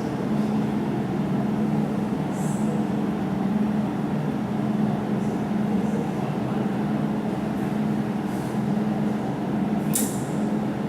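Jewelry laser welding machine running with a steady low hum, broken by a few brief high-pitched snaps, the sharpest near the end.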